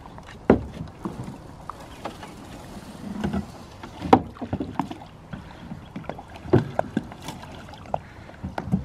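Knocks and thumps of boots and a wooden paddle against the hull of a small rowboat as a man climbs in and pushes off from the bank. They come irregularly, the loudest about half a second, four seconds and six and a half seconds in.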